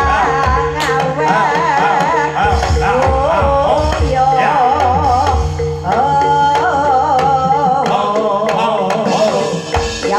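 Live Javanese jaranan/barongan music: hand drums beating a quick rhythm under steady ringing tones, with a high wavering melody line with strong vibrato that holds a long note about halfway through.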